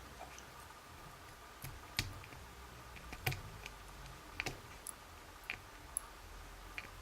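Faint, scattered small metal clicks and taps, about eight spread over several seconds, as a euro cylinder lock is taken apart: the plug is drawn out and its pins come out.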